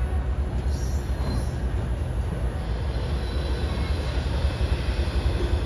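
Diesel-electric locomotive pulling a passenger train slowly into a station: a deep, steady engine and rolling rumble, with faint wheel squeal on the rails.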